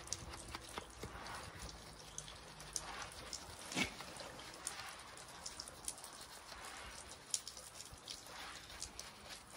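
A wheel brush scrubbing between the spokes of a foam-covered 16-inch alloy wheel on a Porsche 986 Boxster: wet swishing of bristles through the soap, with many small sharp clicks and taps, the sharpest about four seconds in and again past seven seconds.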